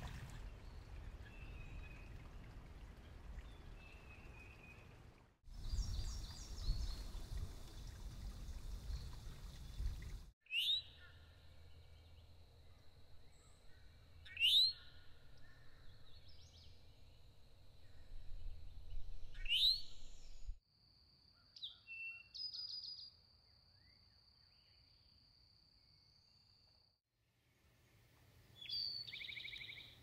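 Eastern towhee calls: a sharp rising call three times, about four to five seconds apart, over a thin steady high tone. Near the end comes a song of a clear note followed by a fast trill.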